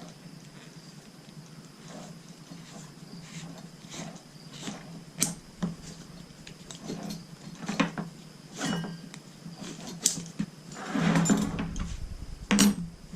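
Nylon webbing strap of a tree-climbing saddle being handled and pulled through its metal D-ring and loops: scattered rustles and sharp clicks, with a longer, louder rustle about eleven seconds in.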